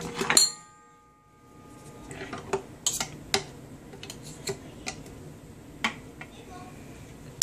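A metal spoon and the chopper blade clicking and knocking against the plastic bowl of a small food chopper as minced garlic is scooped out. A ringing clatter comes just after the start, then scattered light clicks, and another ringing knock at the very end.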